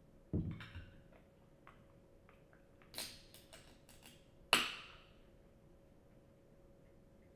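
A low thump about half a second in, then a few small clicks as a finger works the ring-pull of an aluminium soda can, and the can cracking open with a sharp pop and a short fizzing hiss of carbonation at about four and a half seconds.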